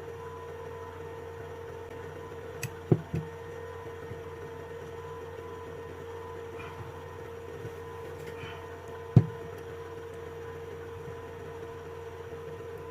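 Steady electrical hum with a few short plastic clicks and knocks: three close together about three seconds in and a louder single knock about nine seconds in, as replacement Samsung lithium-ion cells are pressed into the tight plastic cell holder of a Milwaukee M18 battery pack.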